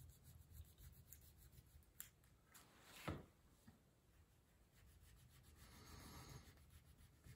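Faint scratching of a black wax crayon rubbed back and forth on paper, with one short louder sound about three seconds in.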